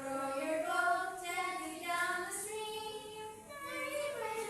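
A woman and young children singing a song together, with long held notes sliding slowly up and down in pitch.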